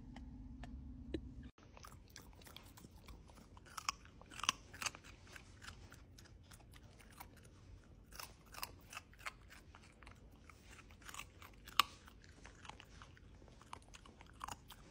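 A golden retriever puppy crunching and chewing pieces of raw carrot, with irregular crisp crunches. A car cabin's low steady hum runs for the first second and a half and then stops.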